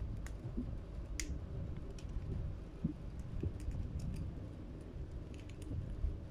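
African grey parrot's beak clicking and scraping on a small blue plastic bottle cap held in its foot: scattered sharp little clicks, with a louder one about a second in and a quick cluster near the end.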